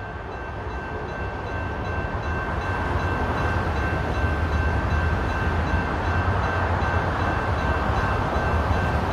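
Diesel freight locomotives running. Their low engine rumble grows louder over the first few seconds as they approach, then holds, with a steady high-pitched whine over it.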